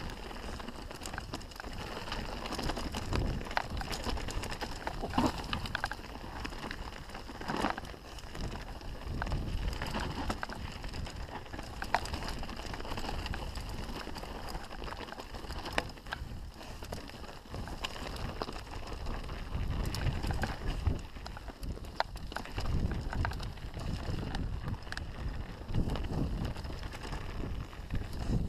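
Canyon Strive full-suspension mountain bike descending a rocky trail: tyres crunching over stones and dirt with frequent clicks and knocks from the bike rattling over the rough ground, over a steady low rumble of wind on the microphone.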